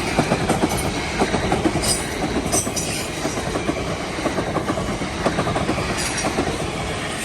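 Passenger train passing over a level crossing at speed, its wheels clattering over the rails in a steady rush of noise with many irregular clicks. The sound drops away sharply right at the end as the train clears the crossing.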